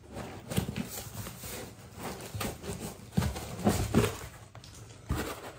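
White foam packing insert being worked up out of a cardboard box: foam scraping and rubbing against the cardboard walls, with a few sharper knocks, the loudest in the middle and near the end.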